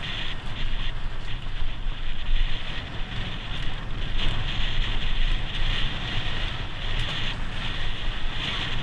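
Wind buffeting the microphone of a bicycle-mounted camera while the bike rides fast over bumpy grass and dirt, with a steady rush of noise and faint knocks from the rough ground.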